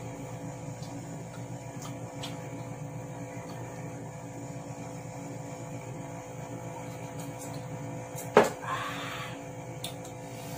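Steady electrical mains hum. About eight seconds in comes a sharp click, followed by a short breathy exhale.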